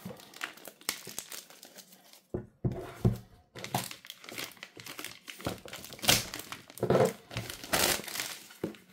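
Plastic wrapping being torn and peeled off a cardboard box by hand, crinkling and crackling in irregular bursts with a few sharper rips.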